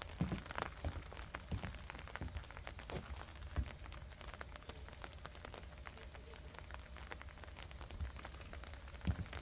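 Rain falling and dripping onto surfaces as a dense patter of small, sharp drop ticks. A few soft low thumps are mixed in.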